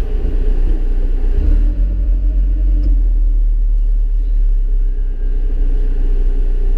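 Alfa Romeo 4C's turbocharged 1.75-litre four-cylinder engine running steadily at low speed, a deep, even rumble heard through the open window and echoing in an enclosed parking garage.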